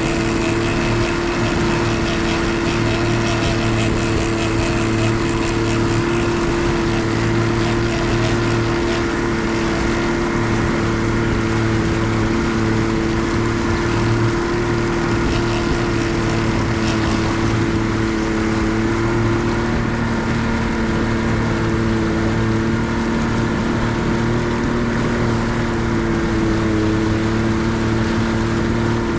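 Boat's outboard motor running at a steady cruising speed, its even engine note unchanged as the boat moves along.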